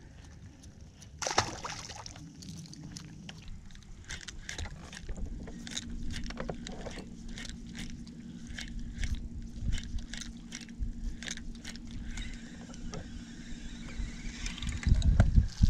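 Bow-mount electric trolling motor running with a steady hum that starts about five seconds in, with scattered light ticks and a loud low rumble near the end.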